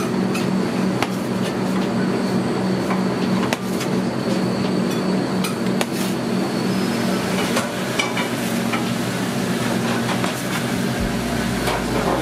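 Kitchen knife cutting through dough and tapping on a stainless-steel worktop: a scattering of sharp taps at irregular intervals over a steady kitchen hum.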